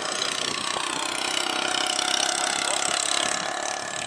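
A large engine running steadily, with a faint whine over its noise, swelling in the first second and easing off near the end.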